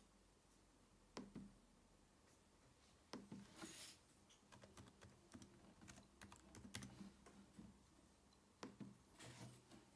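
Faint typing on a white 2010 MacBook's (A1342) built-in keyboard, entering a password: a quick run of soft key taps from about four to eight seconds in, with a few single clicks before and after.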